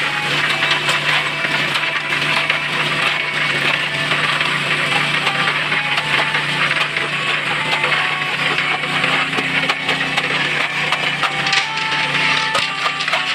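Wet concrete full of coarse gravel sliding into a foundation footing and being worked with a hand tool: a dense, continuous crackling and gritty scraping over a steady low hum. Faint background music with plucked notes comes through, clearer near the end.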